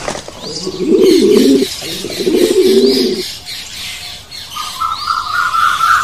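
A pigeon cooing in two low phrases of about a second each, with small birds chirping high above. Near the end a higher, pulsing bird call comes in for about a second and a half.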